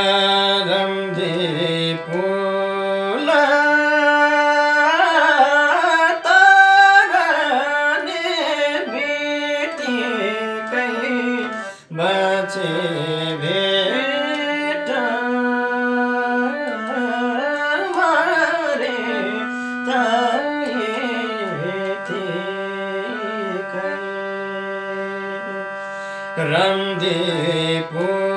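Nepali folk song music: a held reed-organ-like drone under a melody with gliding, bending notes. The music briefly drops out about twelve seconds in.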